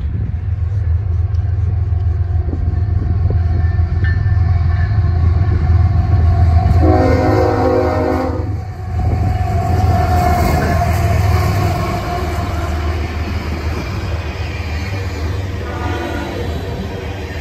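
Diesel freight locomotives passing close by with a heavy, deep engine rumble. A long air-horn blast sounds about seven seconds in, and a shorter, fainter horn sounds near the end as the tank cars roll past.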